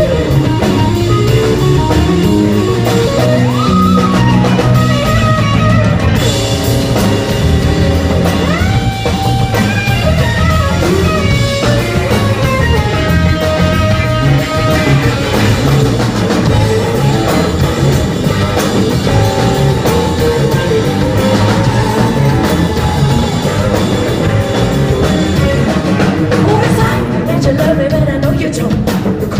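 Live rock band playing an instrumental passage, with electric guitar lines over bass and drum kit.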